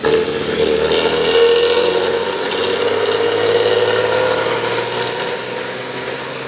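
Bus engine running hard with its snore-like growling note, the 'ngorok' sound bus fans prize. It comes in suddenly, swells over the first second or so, then slowly eases and fades.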